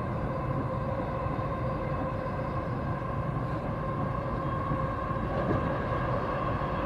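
Steady running noise heard from inside a moving vehicle: a low rumble with a steady high whine over it.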